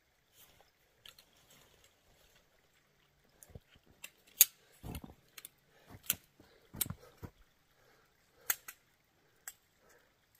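Sharp clicks and knocks of a sectioned tent pole being fitted together and handled, a few seconds apart, the loudest about four and a half seconds in, with some duller thuds among them.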